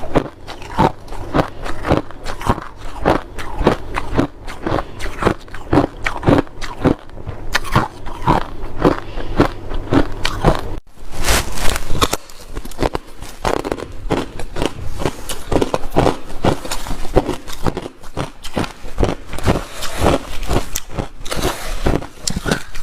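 Snow ice being bitten and chewed, a steady run of crisp crunches about two to three a second, with a brief break about eleven seconds in followed by a louder crunch.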